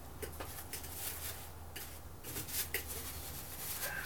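Hands working at a lawn mower engine with a rag: a string of irregular short rustles and scrapes, over a steady low hum.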